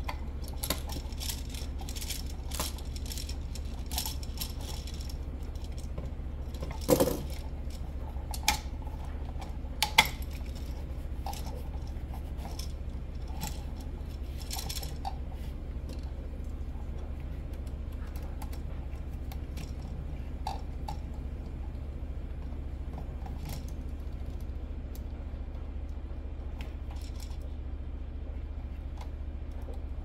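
Scattered small metallic clicks and clinks of hand tools and copper wire being worked at an electrical outlet, with a few louder knocks about seven to ten seconds in. A steady low hum sits underneath.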